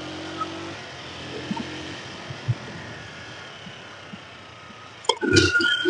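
Small motorcycle engine running low after a downshift, fading under a steady hiss of wind and road noise as the bike rolls along. A short loud sound breaks in near the end.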